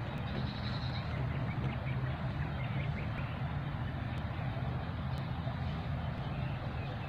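A steady low motor hum under a constant hiss.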